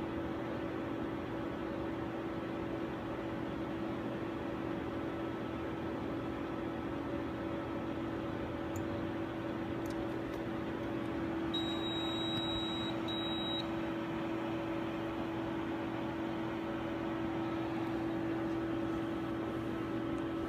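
Steady hum of laboratory equipment: a constant low-pitched tone over an even hiss, unchanging.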